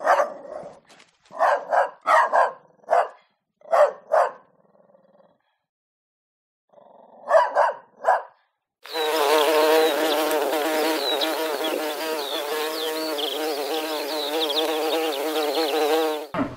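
A dog barks in short, sharp bursts, about a dozen over the first five seconds and three more a little later. Then a loud, steady buzzing of many insects starts and runs on to the end.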